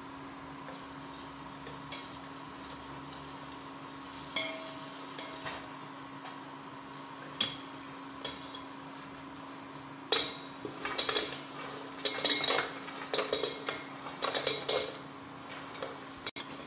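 Steel ladle clinking and scraping against a steel pan of thick boiling sugar syrup. There are a few scattered clinks at first, then a busy run of clinks and scrapes from about ten seconds in, over a steady low hum.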